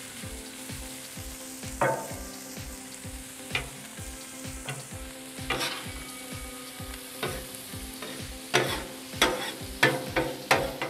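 Chopped onions, carrots and cabbage sizzling on a Blackstone flat-top griddle while being stirred with metal spatulas. Sharp clacks and scrapes of the spatulas on the griddle's steel top come now and then, then quicker and louder from about two-thirds in.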